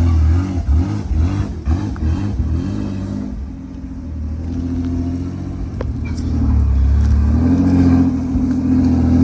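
Straight-piped Nissan RB30 straight-six in a Patrol revving up and down several times, easing off, then building to a loud sustained pull about seven seconds in.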